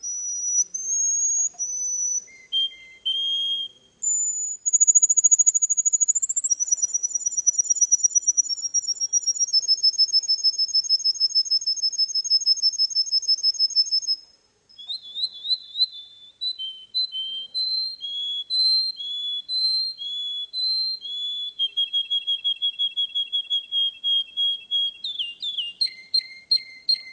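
Russian canary singing a long song of clear whistled phrases that step between high and lower pitches, with rolls of rapidly repeated notes and brief pauses about four and fourteen seconds in.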